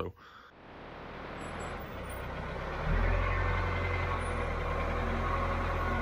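Wheel loader's engine running steadily, with a low hum that grows louder and steps up about three seconds in.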